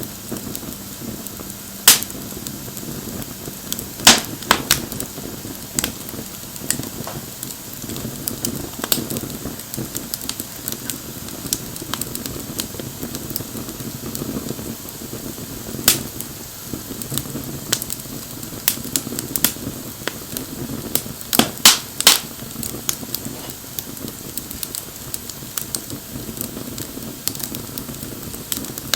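Wood bonfire burning: a steady low rush of flames with irregular sharp crackles and pops, a few of them much louder than the rest.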